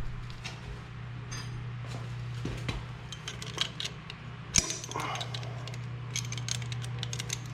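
Small metallic clinks and quick ticks of a hand tool working a 12 mm nut, with one sharper click about halfway through, over a steady low hum.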